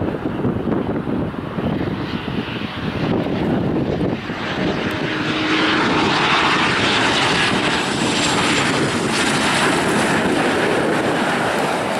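Air Canada Embraer E190's twin GE CF34 turbofans on final approach: a steady rushing jet noise that swells louder about five seconds in as the airliner comes close, with a faint high fan whine over it.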